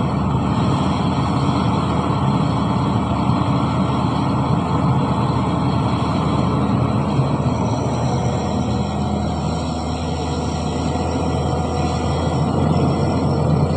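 Heavy diesel earthmoving machinery, an excavator or dump truck, with its engine running steadily, a dip in loudness around ten seconds in.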